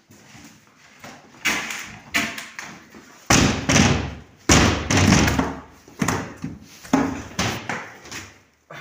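A door being pulled and shoved by hand, banging and rattling in its frame with about a dozen irregular thuds, the heaviest in the middle.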